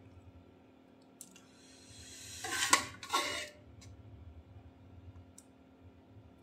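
Metal ladle scraping thick dal and mutton out of a pressure cooker pot: two loud scrapes near the middle, with a few faint clicks around them.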